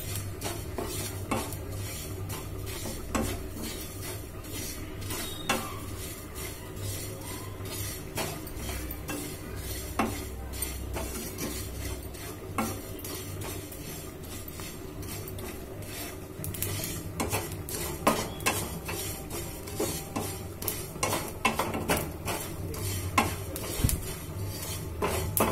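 Wooden spatula stirring and scraping cumin seeds around a nonstick frying pan as they dry-roast, with frequent short clicks of spatula and seeds against the pan that come thicker in the second half. The seeds are crackling as they roast, over a steady low hum.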